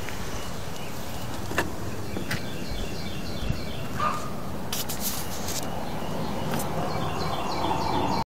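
Birds chirping in repeated quick series of short high notes over steady outdoor background noise, with a few footsteps knocking on the plywood deck and a brief scraping rustle about five seconds in. A low hum grows near the end.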